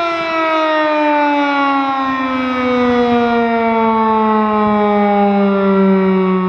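Federal Signal Model 5 outdoor warning siren sounding loudly, its tone gliding slowly and steadily down in pitch as the rotor winds down.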